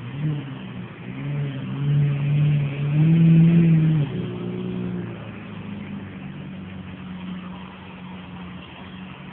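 Lamborghini Murciélago LP640's 6.5-litre V12 engine given a few short throttle blips, the longest and loudest about three seconds in, then running steadily at low revs as the car rolls slowly past.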